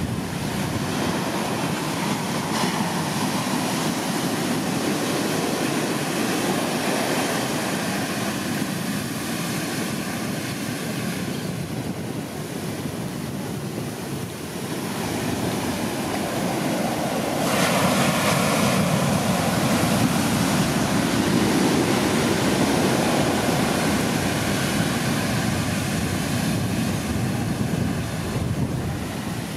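Heavy storm surf breaking and washing up the sand, a steady rush of whitewater that grows louder for several seconds past the middle as bigger waves come in.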